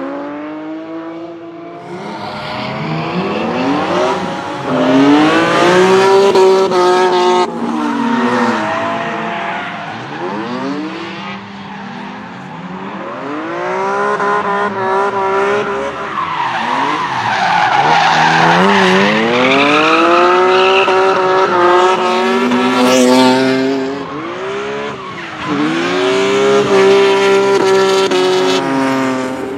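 BMW E30 drift cars' engines revving, the pitch climbing and dropping again and again as the throttle is worked, with tyres squealing and skidding through the slides.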